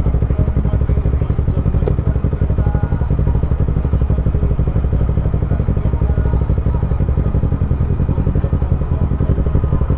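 Honda CBR125R's single-cylinder four-stroke engine running steadily at an even pitch, with no revving.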